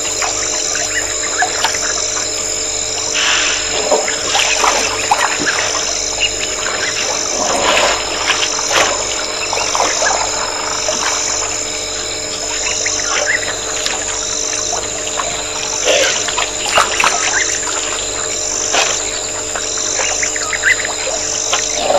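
Wild birds chirping and calling in short scattered bursts over a constant hum and hiss.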